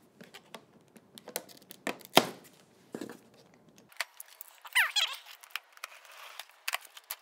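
Plastic strapping on a cardboard box being cut with a cutter, with scattered clicks and rustles and a sharp snap about two seconds in as a strap gives. Then, sped up, the cutter slicing packing tape on the box, with a short squeaky chirp near the middle.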